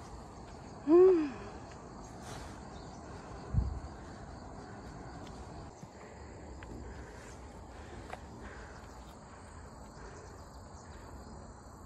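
Steady chorus of crickets and other insects, shrilling high and unbroken. About a second in, a short loud pitched call rises and falls, and a dull thump follows a few seconds later.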